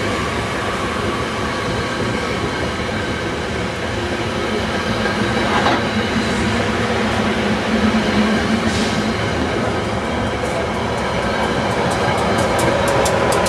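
SEPTA push-pull train's passenger coaches rolling past on steel rails in a steady rumble. Near the end a quickening run of wheel clicks over the rail joints begins as the ALP44 electric locomotive draws near.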